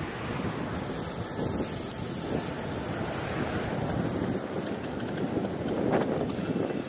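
Wind buffeting the microphone of a camera carried on a moving bicycle: a low, uneven rushing noise that surges briefly about six seconds in.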